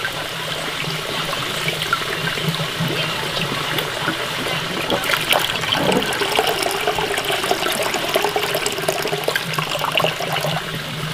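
Water splashing and trickling as split mung beans are rinsed in a ceramic bowl: hands stir the beans in the water, then the cloudy rinse water is poured off over the bowl's rim into a large basin of water.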